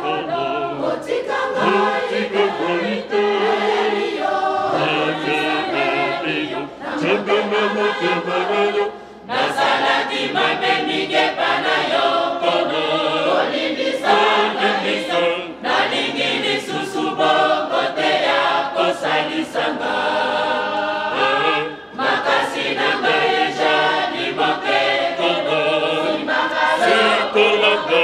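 Mixed choir of women's and men's voices singing together, in long phrases with brief pauses between them.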